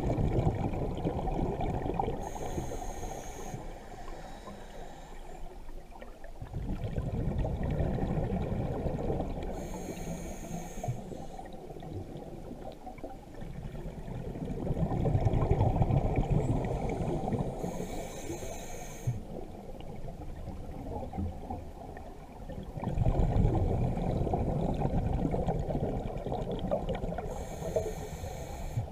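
Scuba diver breathing through a regulator, heard underwater: four breaths about eight seconds apart, each a short hissing inhale through the demand valve, between them the low rumble and gurgle of exhaled bubbles rising.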